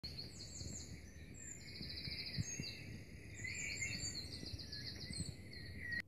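Several birds chirping and trilling in quick, overlapping phrases over a low background rumble. The birdsong stops abruptly at the end.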